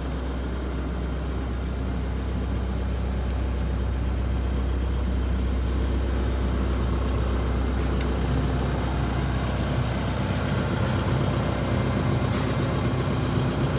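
Diesel engine of a Terex TW130 wheeled excavator running steadily, with its tone shifting slightly about ten seconds in.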